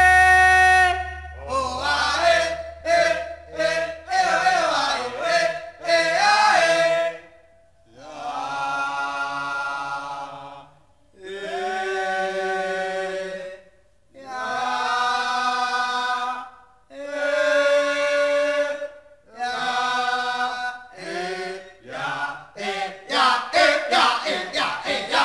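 Unaccompanied vocal chant for a traditional Javanese dance: quick gliding sung lines, then a string of long held phrases each two to three seconds long with short breaks between them, turning into shorter, quicker notes near the end.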